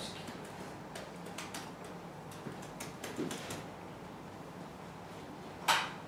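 Small clicks and taps of a whiteboard marker being handled in a quiet room, with a single sharper clack near the end.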